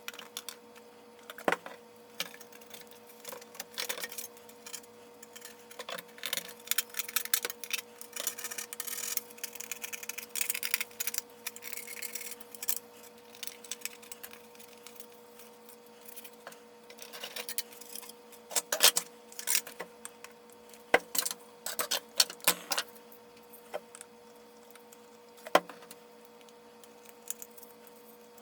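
Irregular clicks, taps and scratchy rubbing of a plastic toy hull being handled and scrubbed to remove old sticker adhesive, with a denser stretch of rubbing about a third of the way in, over a steady faint hum.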